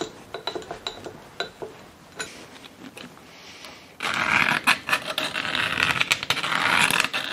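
Scattered light clicks and taps of metal being handled at the lathe, then about four seconds in a louder, rough, uneven scraping: metal swarf being brushed and scraped off the freshly faced workpiece.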